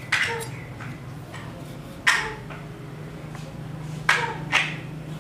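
Chef's knife striking a wooden chopping board as it slices through cherry tomatoes: four sharp, separate knocks, the last two about half a second apart.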